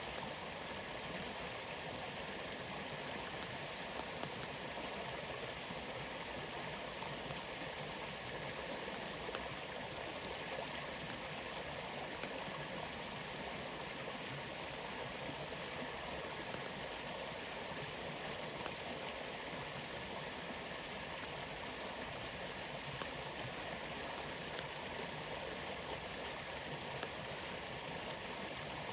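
Steady rushing of a rainforest waterfall, with rain falling, as one constant, even wash of water noise.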